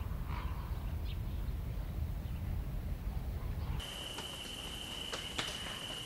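Nature ambience: a low rumble with a few faint, short bird chirps, then, about four seconds in, a steady high-pitched insect trill starts, with two sharp clicks near the end.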